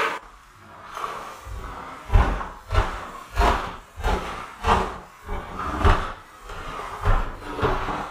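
Footsteps climbing a flight of stairs, a regular thud about every 0.6 s beginning about two seconds in.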